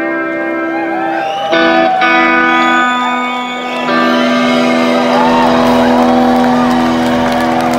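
Live band holding long electric guitar chords that change a few times, likely the close of the song. Audience whistles and cheers build over it in the second half.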